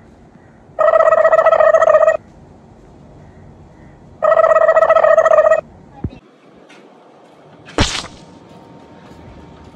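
A steady pitched sound effect, a held buzzing tone, played twice in identical copies each about a second and a half long. Near the end a short rising whoosh marks a scene transition.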